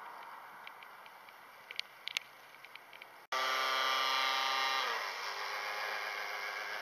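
Small electric motor of a remote-controlled toy boat whining with its propellers spinning. It starts abruptly about halfway through and drops slightly in pitch about a second and a half later. Before it comes only a faint hiss with a few light clicks.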